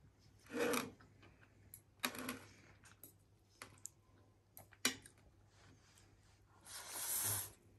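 Instant ramyun noodles slurped in two noisy draws, one about half a second in and a longer one near the end, with chopsticks clicking against a plate a few times in between.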